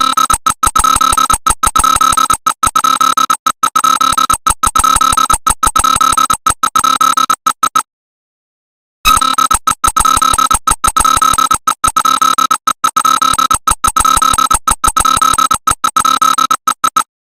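Emergency alert system alarm tone: a high, buzzy electronic beep pulsing rapidly, in two runs of about eight seconds with a silence of about a second between them.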